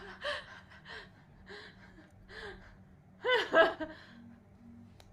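A woman's short gasping vocal sounds: four soft ones, then a louder double one a little after three seconds in.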